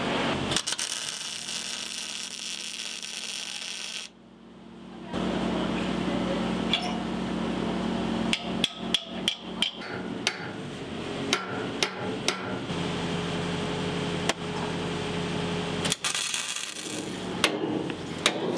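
Hammer striking steel dogs and wedges to pull a steel doubler plate tight against a boat hull for welding: runs of sharp metal strikes about eight seconds in, again around eleven to twelve seconds, and near the end, over a steady background hum.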